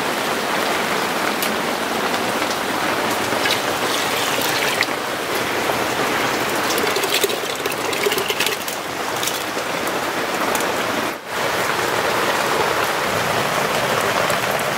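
Steady rain falling on leaves and ground: a continuous hiss with scattered drip ticks. It dips for a moment about eleven seconds in.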